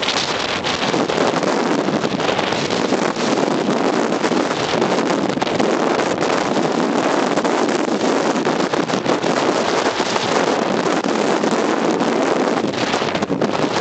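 Blizzard wind blowing hard across the microphone: a loud, steady rush of noise with small gusty flickers.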